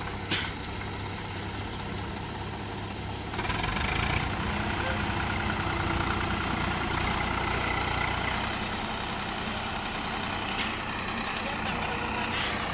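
Swaraj tractor's diesel engine running under load, then revving up harder about three seconds in and holding there as it strains to pull a loaded trolley out of soft sand.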